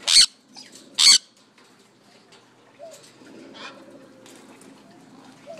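Pet parrot giving two loud, harsh squawks about a second apart, followed by faint softer chirps and chatter from the flock.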